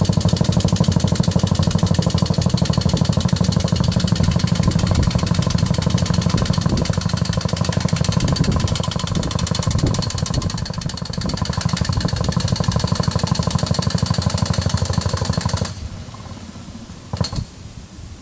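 A percussive boring tool hammering rapidly and steadily as it drives a bore under a concrete driveway. It cuts off suddenly near the end, followed by a single knock.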